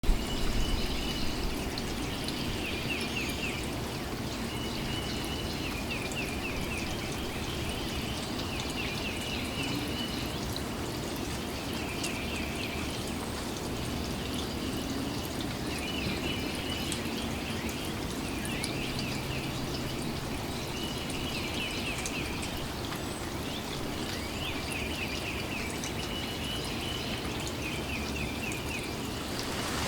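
Light rain falling steadily, with water pouring and trickling, as a thunderstorm comes in. A pulsing animal call, about a second and a half long, repeats every few seconds through the rain.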